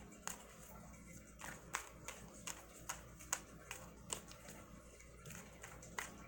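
A deck of tarot cards being overhand-shuffled by hand, packets of cards slapping and flicking against the stack in faint, irregular clicks, about one or two a second.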